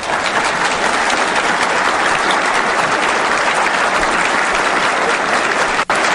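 Large audience giving a big ovation, dense steady applause that cuts out for an instant near the end.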